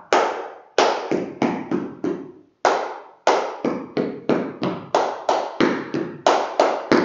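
Dance stamps of boots on a tiled floor with hand claps (zapateado and palmas), a rhythmic run of sharp strikes at about three a second in short groups, each ringing briefly in the room.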